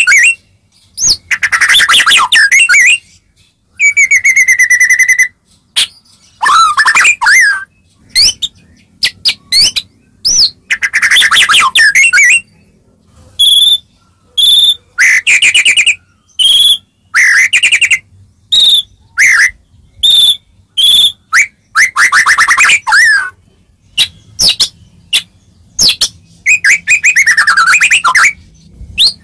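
White-rumped shama singing loudly: a string of varied phrases of rich whistles and rapid chattering notes, each a second or two long, with short gaps between. About four seconds in there is one long steady whistle, and in the middle a run of short, clear high notes.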